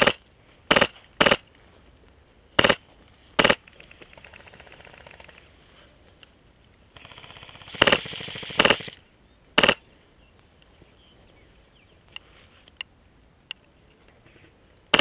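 Airsoft guns firing: sharp single shots at irregular intervals, with a fast full-auto rattle around four seconds in and a louder, longer one around eight seconds in.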